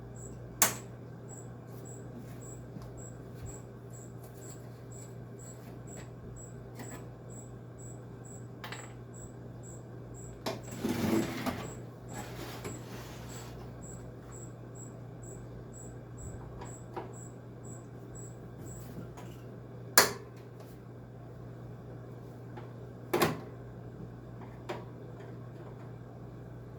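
Hand tools and the window air conditioner's metal case clanking during disassembly: a few sharp clacks and a scraping, rustling stretch about eleven seconds in, over a steady low hum.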